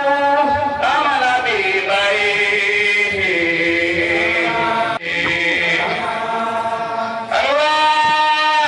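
A man chanting a religious chant into a microphone, long drawn-out notes with slow glides in pitch. The chant breaks off briefly about five seconds in, and a new phrase starts on a high held note about seven seconds in.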